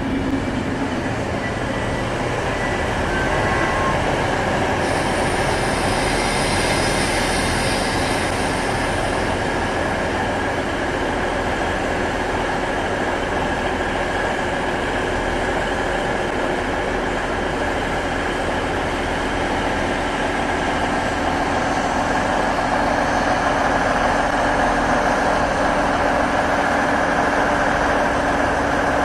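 DB Class 612 diesel multiple unit rolling slowly past, its diesel engines running steadily along with wheel and rail noise. A high hiss comes in about five seconds in and lasts a few seconds.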